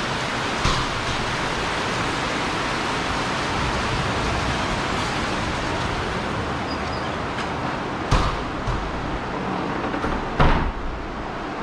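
Heavy rain falling steadily, an even hiss. A few short knocks or splashes stand out about a second in and twice near the end.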